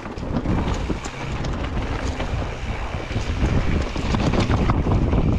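Mountain bike riding over a rough dirt trail: wind buffeting the microphone, tyres rolling over dry leaves and rocks, and frequent short clicks and rattles from the bike. It grows a little louder over the last two seconds.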